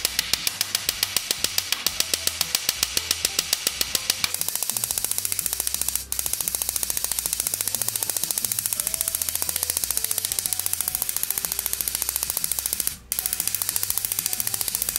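Ball-peen hammer tapping rapidly on the end of a rivet through an iron runner strap, peening it over against a steel bar held behind it: sharp metal-on-metal strikes about ten a second, a little faster after about four seconds in, with two short breaks.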